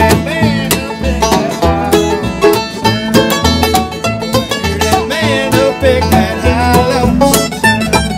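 Bluegrass band playing: banjo, mandolin and acoustic guitar picking over a plucked upright bass that thumps out low notes about twice a second.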